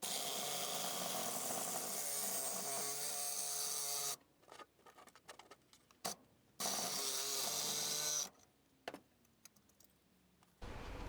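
Power saw cutting through a thick steel container held in a vise, running steadily for about four seconds, stopping, then running again for a little under two seconds.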